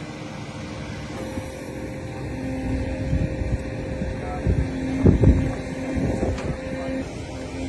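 Construction machine engine running with a low rumble and a faint steady whine, with a few heavy knocks about five seconds in.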